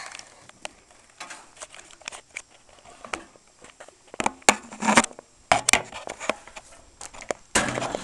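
Footsteps crunching on loose ground, with scattered clicks and rustles; the loudest crunches come about halfway through and just before the end.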